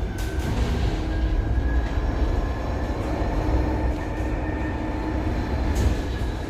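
Steady running noise of a public transport vehicle, a low rumble with a faint high whine held throughout.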